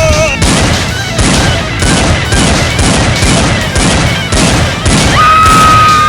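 Rapid gunfire sound effects, shots in quick repeated bursts, over background music. A long steady note comes in about five seconds in.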